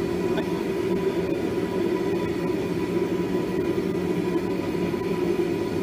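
Single-burner homemade propane forge running at 7 psi: the burner flame makes a steady, even rushing noise.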